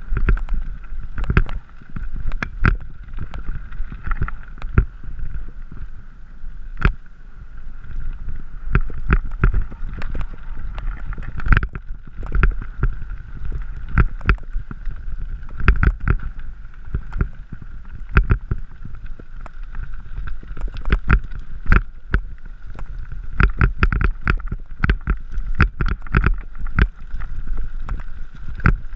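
Mountain bike rolling over a rocky gravel trail, heard from a camera riding along with it: many irregular knocks and rattles from the stones, over a low rumble of wind on the microphone.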